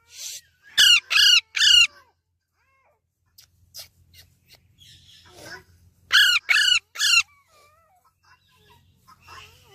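Baby Alexandrine parakeet chirping: two runs of three loud, quick calls, each call dipping in pitch, the first about a second in and the second around six seconds in.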